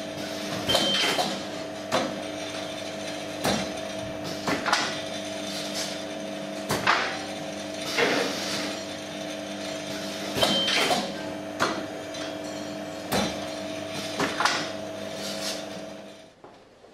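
Corner-profile fiberglass-mesh gluing machine with automatic profile feeder running: a steady motor hum with sharp clacks every second or so as the metal profiles are fed and handled. The hum stops near the end.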